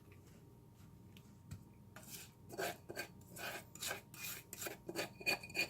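A utensil scraping thick homemade suet out of a dish and into molds: a run of short scrapes, about two a second, starting about two seconds in. A faint clink rings near the end.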